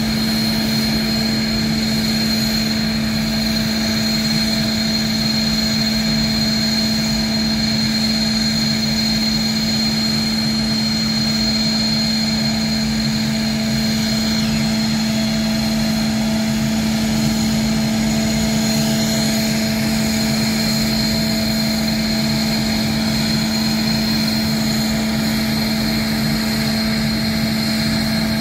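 Jet turbine running steadily at idle: a constant loud drone with a high whine held on one pitch.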